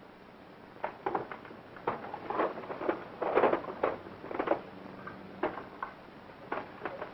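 Objects being handled and rummaged through in a box: an irregular run of small knocks, clicks and rustles, busiest in the middle. A steady hiss from an old film soundtrack lies underneath.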